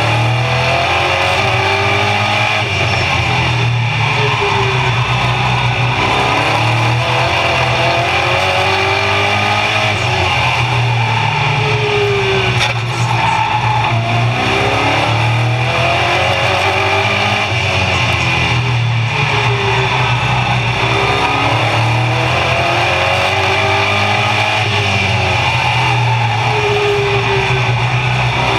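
Race car engine heard from inside the cockpit at racing speed, climbing in pitch as it accelerates and dropping back as the driver lifts, over and over every few seconds.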